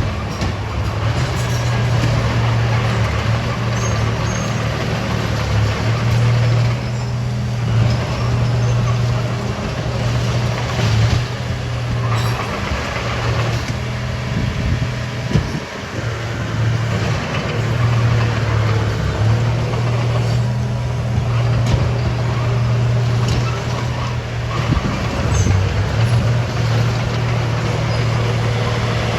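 Heavy diesel engine of earthmoving machinery running steadily under load, a low drone that eases off briefly about halfway through.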